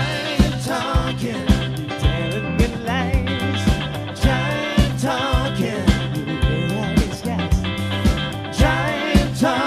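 A band playing an upbeat instrumental passage: a steady drum beat at about two strokes a second, a stepping bass line, and a lead melody that slides and wavers with vibrato.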